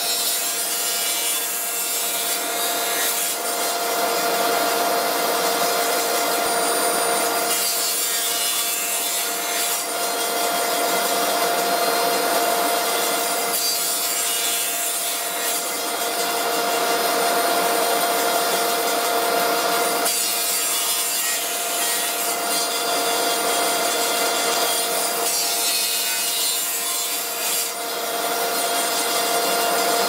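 Table saw running with a steady whine, cutting slots across the mitred corners of a wooden box pushed through on a crosscut sled. The cutting noise swells and eases every several seconds as each pass goes through the wood.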